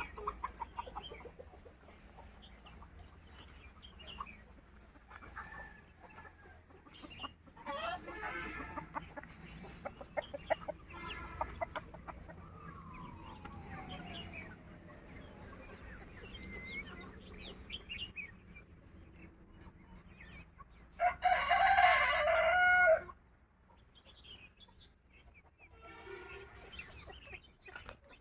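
Local-breed chickens clucking at intervals, with a rooster crowing once, loudly, about three quarters of the way through.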